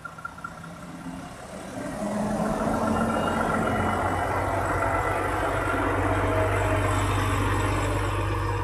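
Volvo FM440 truck's 13-litre straight-six diesel engine running as the rig moves slowly past close by, the engine note swelling about two seconds in and then holding steady.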